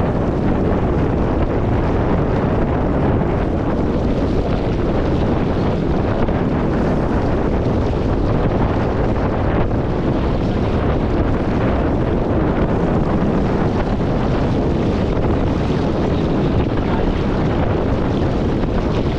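Steady wind blowing across a bow-mounted camera's microphone on a J24 sailboat sailing upwind, with the rush of water along the hull underneath. The noise holds even throughout, with no distinct events.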